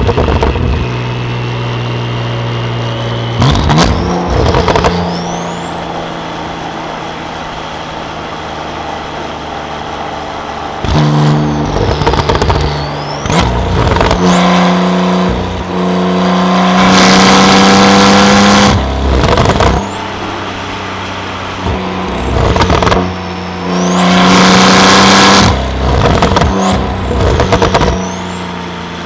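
Porsche 911 Carrera (991.2) twin-turbo 3.0-litre flat-six with a titanium exhaust, heard from inside the cabin: steady cruising on the highway, broken by two hard throttle pulls, one about halfway through and a shorter one near the end, with short breaks at gear changes. A high whine rises and falls with the throttle.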